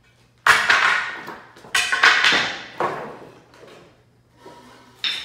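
Hammer blows and loose wooden pallet boards knocking and clattering as the pallet is taken apart by hand. There are about five sharp knocks, each ringing out briefly: the loudest come about half a second and two seconds in, and another comes near the end.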